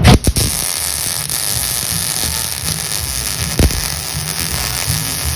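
Wire-feed welder arc running, a steady dense hiss that strikes up sharply at the start, as a nut is welded onto a broken stud to give a grip for backing it out. One short click about three and a half seconds in.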